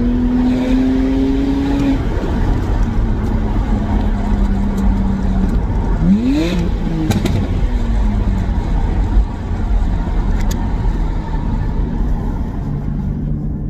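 BMW Z4 3.0si's N52 straight-six, fitted with an aFe intake and modified exhaust, running on the road at a steady engine note with a deep rumble. About six seconds in the revs rise quickly, then settle back to a steady cruise.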